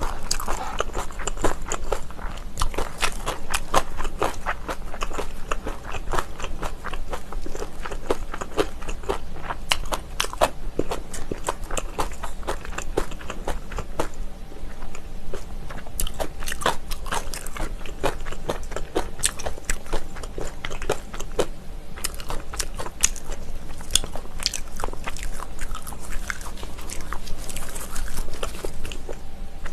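A person chewing and biting crunchy food right at the microphone: a dense run of quick, crisp crunches, mukbang-style.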